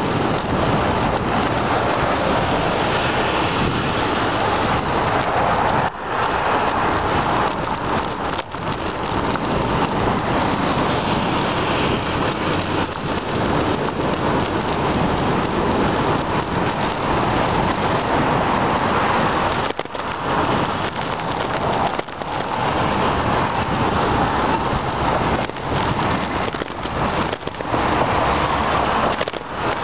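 Steady rushing noise of a bicycle ride on a wet street: wind over the microphone and tyre hiss on wet pavement, with a few short dips.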